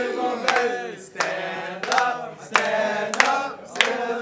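Crowd of young men singing together, with sharp claps keeping a steady beat about every two-thirds of a second.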